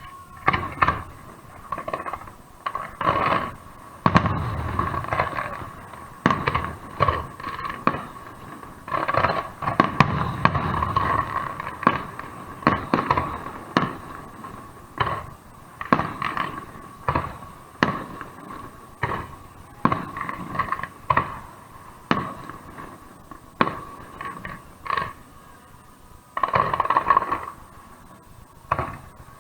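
Fireworks display: a steady run of sharp bangs from bursting aerial shells, with deeper rolling booms in two stretches and a dense burst of crackling near the end.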